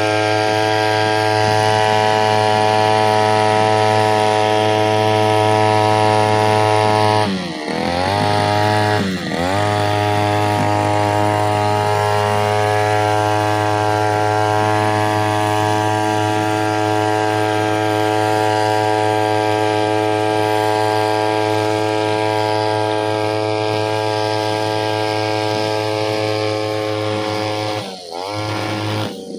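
33cc backpack brushcutter engine running at high revs while cutting grass. The revs dip and pick up again twice about seven to nine seconds in, and once more near the end.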